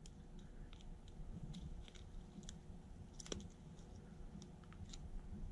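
Faint, scattered small clicks and scrapes as the parts of a disassembled Casio Pathfinder watch module are handled in the fingers.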